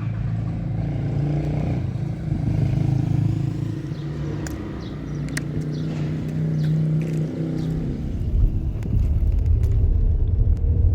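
Car engine running with a steady low hum; about eight seconds in it turns into a louder, rougher rumble.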